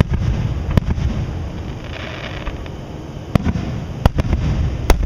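Fireworks display: aerial shells bursting with sharp reports, about five of them, the loudest near the end, over a steady low rumble of further bursts and their echoes.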